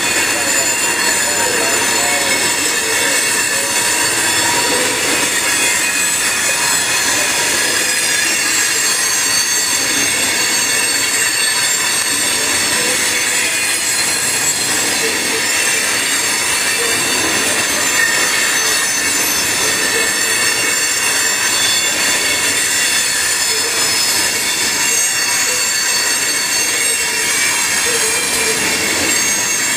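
Freight cars rolling past, their steel wheels squealing steadily against the rails as a set of high-pitched tones over the rumble of the train.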